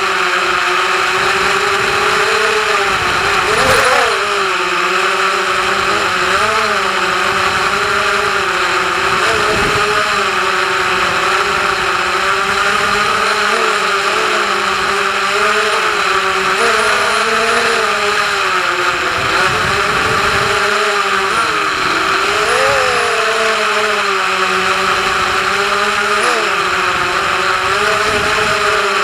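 FPV quadcopter's motors and propellers whining steadily, the pitch jumping up briefly several times as the throttle is blipped.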